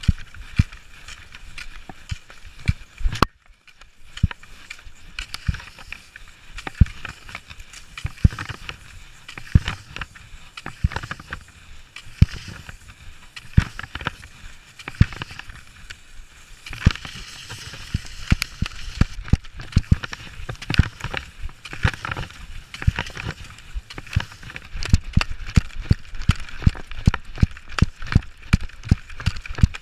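Cross-country skis hissing over the snow track with the repeated knock of ski poles planting as the skier strides along, the knocks coming closer together in the last few seconds.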